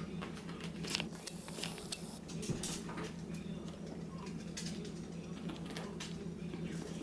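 Poodle mother and puppies scuffling in play on a rug: a quiet patter of paws and claws with scattered light clicks, over a steady low hum.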